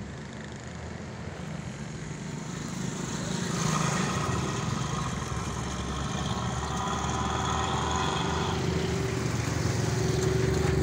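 Massey Ferguson 240 tractor's three-cylinder diesel engine running as the tractor drives along. From about three and a half seconds in to about eight and a half seconds a higher, wavering whine sounds over the engine.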